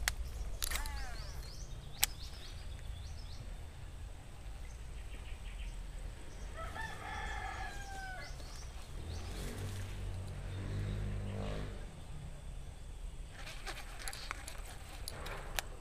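A rooster crows once, about halfway through, over a steady low rumble. Right at the start a baitcasting reel's spool whines down in pitch as after a cast, and later a low droning hum swells and fades.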